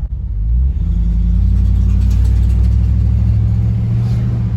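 Chevrolet Silverado pickup pulling away from a stop, its engine speeding up about a second in. Under it there is a rattling like rocks on the passenger side, which the owner believes is a loose starter shaft touching the flywheel when accelerating.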